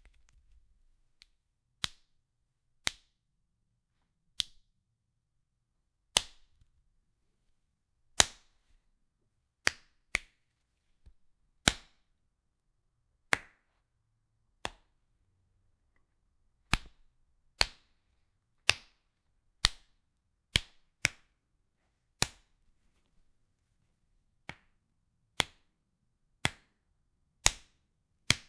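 Stabbing sound effect: a knife-stab hit repeated about two dozen times, each a short, sharp smack with a quick decay, spaced irregularly one to two seconds apart.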